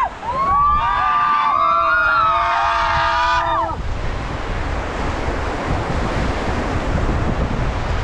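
A group of rafters yelling a long 'woooo' together, their voices sweeping up and then holding for about three and a half seconds. After that, rushing whitewater and wind buffeting the microphone.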